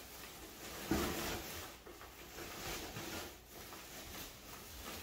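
Plastic branches of an artificial Christmas tree rustling against a cardboard box as they are pressed down into it, in irregular brushes, the loudest about a second in.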